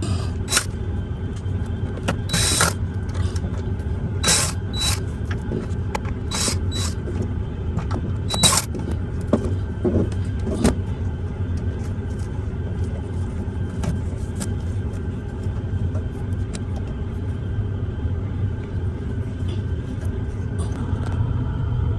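Steady low mechanical rumble and hum, with about ten short, sharp hissing bursts in the first half.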